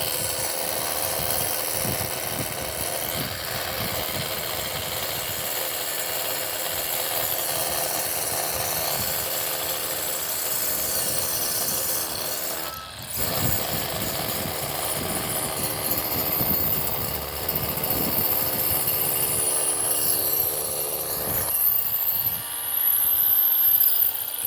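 Hammer drill boring into concrete, running steadily, with a brief stop about halfway through.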